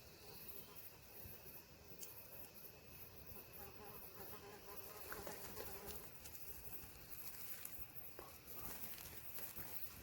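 Faint insects buzzing and chirring, a steady high-pitched drone with a lower buzz through the first half and a few faint clicks.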